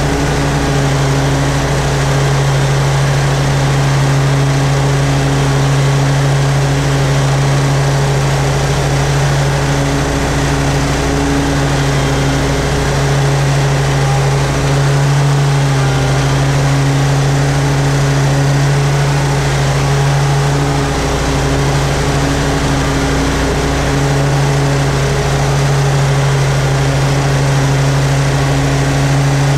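Toro Z-Master 4000 zero-turn mower engine running steadily at mowing speed with the cutting deck engaged, mowing grass. The engine note wavers a few times in the middle.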